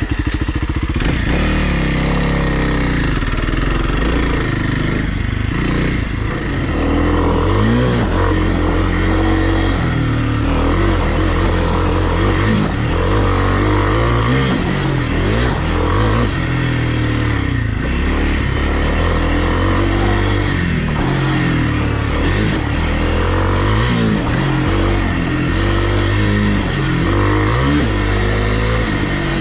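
Kawasaki KLX300R dirt bike's single-cylinder four-stroke engine running, its revs rising and falling again and again under the throttle.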